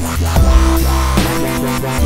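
Electronic dance music with a heavy sustained bass and wobbling, downward-sweeping synth notes.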